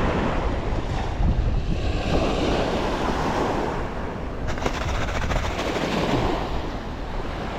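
Wind buffeting the microphone over the wash of sea waves, swelling and easing, with a quick run of faint clicks about halfway through.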